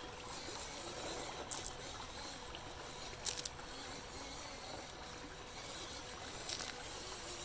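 Shallow stream running over rocks, a steady rush of water, with three brief sharp clicks spread through it.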